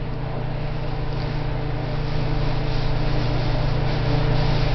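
A steady low mechanical hum that grows slightly louder over the few seconds.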